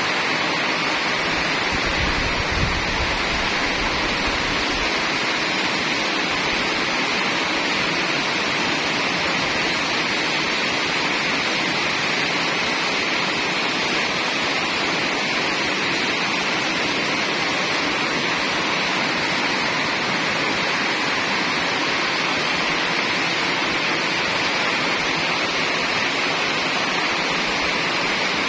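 Heavy rain falling steadily, a dense, even hiss that holds at one level without a break.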